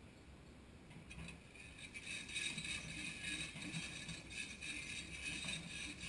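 Tracked excavator working: its engine and hydraulics grow louder over the first two seconds or so, then run on steadily with a rattling edge.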